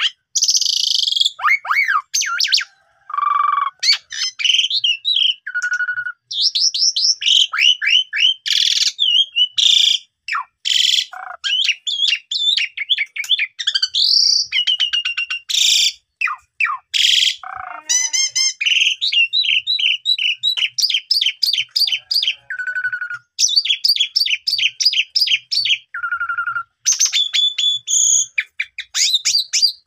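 Asian pied starling (jalak suren) singing a long, varied song in full voice: fast chattering trills, rising and falling whistles and harsh notes strung together with only brief pauses.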